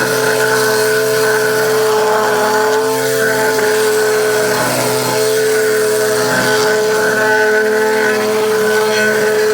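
A small engine-driven machine runs loud and steady at a constant high speed, holding one even pitch throughout.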